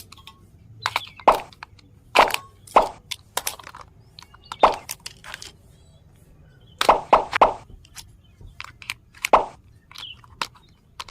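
Irregular sharp clicks and knocks from hands handling an RC toy car and its packaging during unboxing, with a quick cluster of them about seven seconds in.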